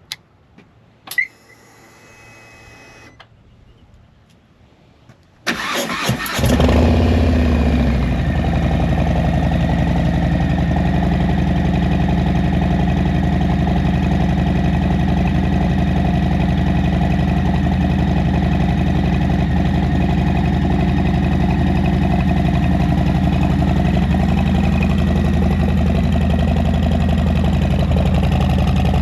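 Harley-Davidson Low Rider S V-twin engine being started: after a couple of faint clicks and a short hum, the starter turns it over about five seconds in and it catches at once, then settles into a steady idle.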